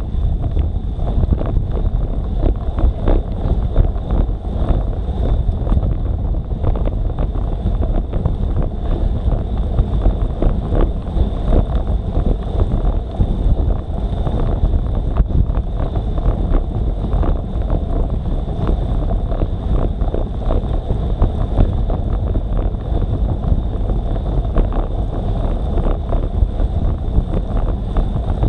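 Wind buffeting the microphone of a bike-mounted action camera in a fast-moving group of road cyclists, a steady low rumble with constant small thumps, mixed with road-bike tyres hissing on wet asphalt. A faint steady high tone sits underneath.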